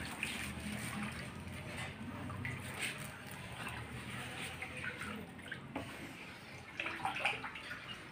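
Wooden spatula stirring a thin milky halaya mixture in a large aluminium wok, the liquid sloshing and splashing in irregular swishes.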